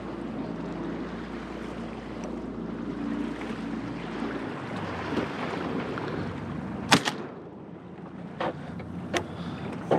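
Boat motor running low and steady under wind and water noise, cutting out about halfway through; a couple of seconds later there is a single sharp bang, followed by a few lighter knocks.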